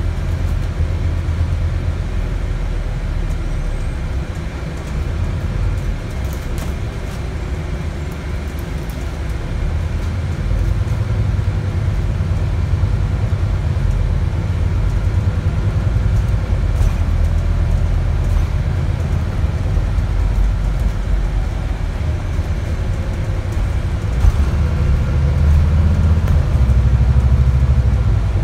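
Alexander Dennis Enviro400 MMC double-decker on a Scania chassis, heard from inside the saloon while under way. The diesel engine and road noise make a steady low rumble that grows louder in the last few seconds as the bus pulls harder, with a faint whine that rises in pitch.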